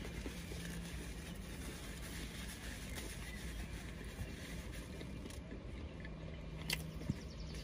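Quiet background hum with faint mouth sounds of a man chewing a mouthful of chicken burger; two small clicks near the end.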